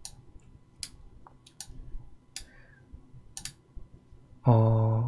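A handful of sharp computer-mouse clicks, about a second apart with some in quick pairs, then a short held hum from a man's voice near the end.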